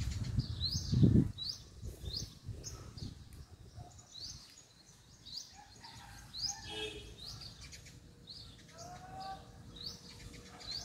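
A bird chirping over and over, a short rising note about one and a half times a second. A low rumble fills the first second or so.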